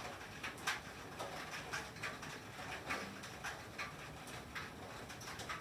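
Rain and sleet hitting a tin roof: a steady hiss with many irregular sharp ticks and taps of drops and ice pellets striking the metal.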